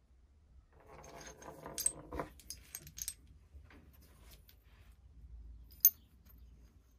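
Small metal bolts, nuts and spacers clinking against each other as they are handled in a palm: a cluster of light clinks and rattles between about one and three seconds in, and a single sharp click near the end.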